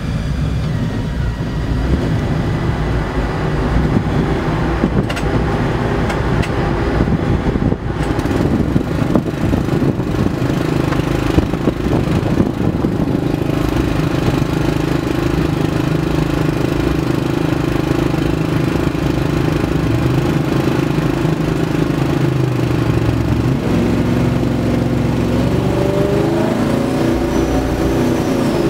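Quad-turbo 454 cubic-inch V8 running naturally aspirated on an engine dyno, holding a steady speed; near the end its note starts to rise as the engine speeds up.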